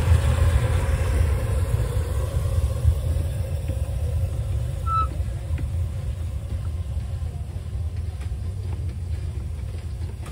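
Low rumble of a small live-steam locomotive rolling away along the track, fading steadily over several seconds.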